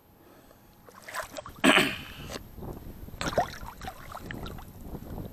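Irregular rustling and scuffing of someone moving through wet bank vegetation in the dark, with one louder burst about two seconds in.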